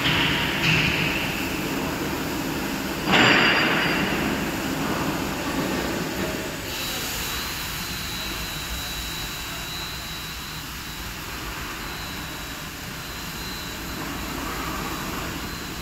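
Overhead crane running as its 1-ton lifting magnet raises a load of steel channel sections, a steady mechanical drone. A sudden loud noise about three seconds in fades over a few seconds, and a faint high whine joins about halfway through.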